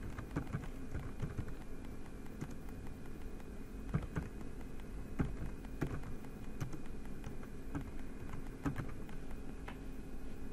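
Typing on a computer keyboard: uneven key clicks with short pauses between them, over a steady low hum.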